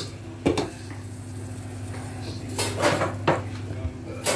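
Kitchen utensil clinking and knocking against a cooking pot and a ceramic plate while cooked greens are served: one knock about half a second in, several clinks around three seconds in, and another near the end, over a steady low hum.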